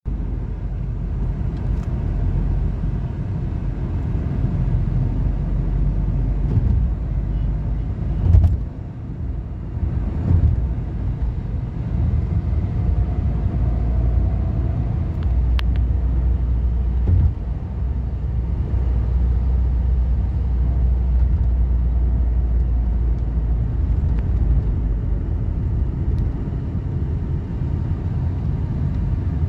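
Steady low rumble of a Tata Tiago hatchback driving, heard from inside the cabin: its engine and road noise, with a few brief thumps about 8, 10 and 17 seconds in.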